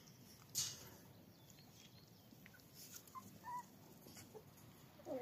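Cavalier King Charles spaniel puppies whimpering faintly: a few short high squeaks about three seconds in, then a louder wavering whine starting near the end. A sharp knock about half a second in, with a few lighter clicks.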